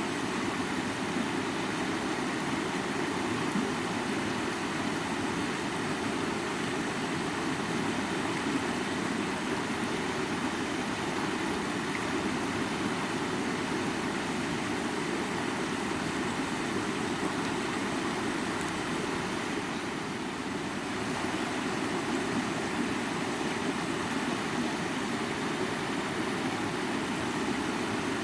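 River water flowing steadily, an unbroken even rush of water.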